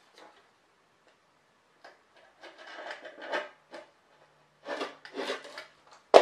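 Small knife blade cutting and scraping along the seal between the lip and barrel of a three-piece wheel, in two short bursts of scratchy strokes. A single sharp click near the end is the loudest sound.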